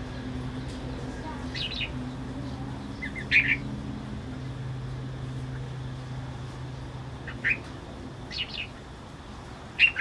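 Caged black-throated laughingthrushes giving five short calls, spaced a second or two apart. A low steady hum underneath fades out about seven seconds in.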